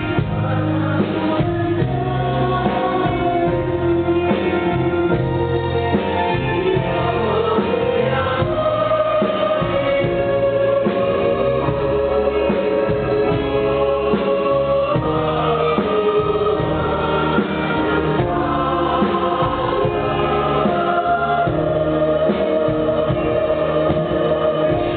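Mixed-voice choir singing sustained chords in harmony, over live band accompaniment.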